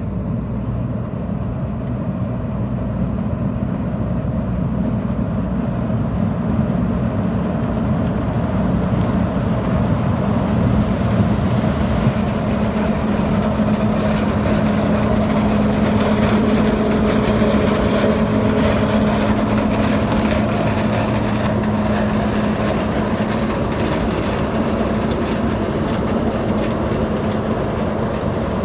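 Combine harvester rumbling as it harvests corn and comes toward and past the listener: a steady, loud engine and threshing drone with a low hum, growing louder to a peak around the middle and easing a little near the end.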